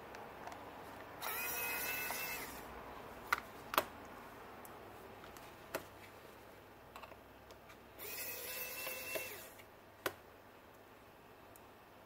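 Small cordless electric precision screwdriver motor running twice, each run lasting about a second and a half with a steady high whine, as it turns out tiny screws in an iPhone 6. A few sharp clicks come between the runs.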